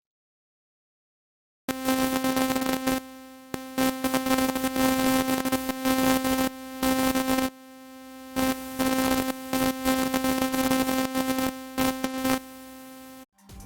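Synthesizer sound-effect preset: a buzzing electric hum-like tone with stuttering, glitchy crackle, gated on and off in irregular chops. It starts abruptly after about two seconds of silence and cuts off just before the end.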